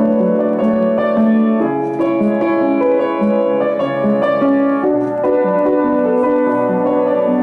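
Background instrumental music with a keyboard melody, notes changing several times a second.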